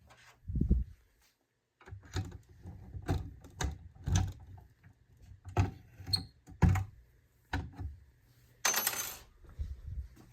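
A string of irregular metallic knocks and clicks with a low thump early on, then a brief bright metallic jingle near the end: keys and a lock being handled as a fire alarm panel is relocked.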